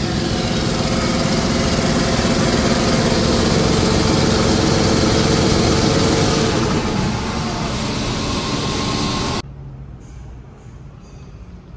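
2009 Mercedes OM926LA 7.2-litre turbocharged inline-six diesel running steadily on a test stand. The sound cuts off abruptly about nine seconds in, leaving a much quieter background.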